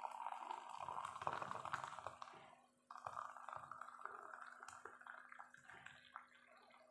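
A stream of water poured from a metal kettle into a tall glass over drink powder. The pour breaks off for a moment about three seconds in, then resumes and grows fainter toward the end.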